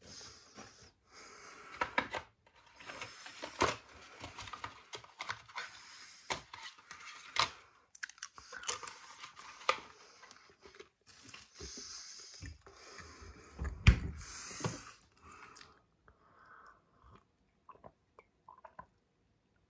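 A person chewing and crunching something close to the microphone, in irregular crackly bursts with scattered clicks. One louder knock comes about two-thirds of the way through, and the chewing dies away near the end.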